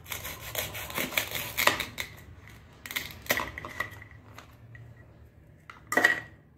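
Plastic toy knife sawing through a plastic toy strawberry on a plastic cutting board: a run of scratchy rasps and clicks, then a sharper clack near the end as a piece is put down on the table.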